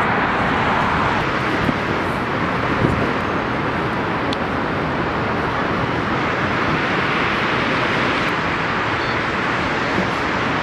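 Steady rushing noise of wind and distant city traffic, even and unbroken.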